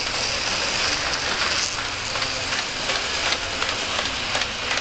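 Gauge 1 model train's wheels rolling along the track as the long Talgo passenger cars pass close by: a steady hiss with scattered light clicks.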